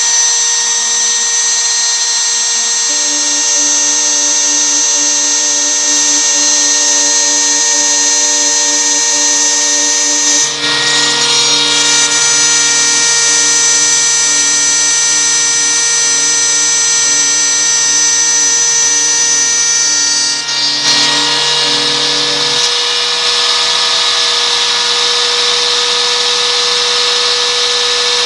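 Homemade CNC milling machine running: the spindle whines steadily at a high pitch while the stepper motors' lower hum shifts in pitch as the axes move. For about ten seconds in the middle the sound turns harsher and noisier.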